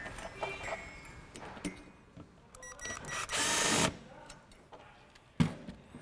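Cordless Ridgid drill/driver backing out screws: short stop-start runs of the motor, a longer run a little past the middle lasting under a second, then a single sharp knock near the end.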